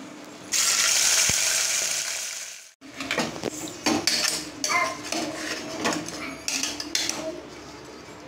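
Raw chicken pieces hitting hot sesame oil in a pressure cooker: a loud sizzle that fades over about two seconds. After a cut, a metal ladle stirring the chicken in the cooker, with repeated clinks and scrapes of metal on metal.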